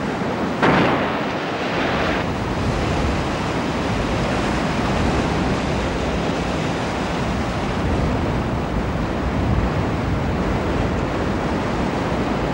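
Heavy ocean surf churning and breaking against rocks in a narrow channel, with wind on the microphone; a louder wave crash comes about a second in.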